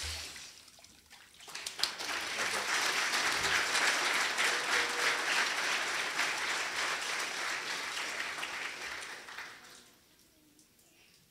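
Water splashing briefly in a baptistry tank as someone is raised from immersion, then a congregation applauding for about eight seconds before the clapping dies away.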